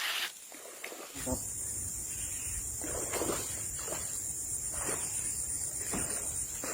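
Steady high-pitched insect chirring sets in about a second in, over a low rumble, with a few short, louder sounds from the handling of the hooked fish.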